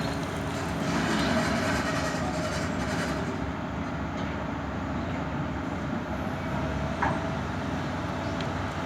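Excavator's diesel engine running steadily, with a short sharp knock about seven seconds in.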